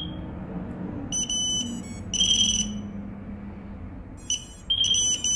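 Several high, single-pitch electronic beeps, each about half a second long and unevenly spaced, sounding while a micro FPV quadcopter is being bound to a Taranis radio transmitter.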